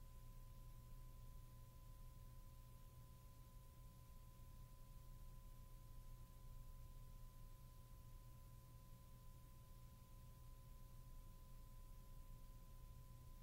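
Near silence: a faint steady low hum and hiss, with two faint steady tones, one high and one lower.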